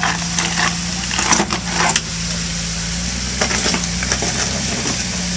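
2006 Jeep Wrangler Rubicon's 4.0-litre straight-six running steadily at low revs while crawling over rock, with irregular crunching and crackling from the tyres and stones, thickest in the first two seconds.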